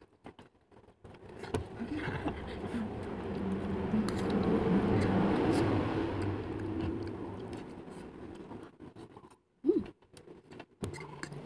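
A motor vehicle going past, its engine noise swelling to a peak about halfway through and then fading away. Near the end comes a short, loud, pitched sound.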